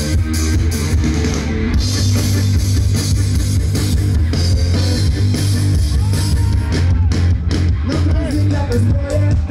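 Loud rock music from a live band over a PA: heavy bass and a steady drum beat with guitar, and a voice singing in the later part.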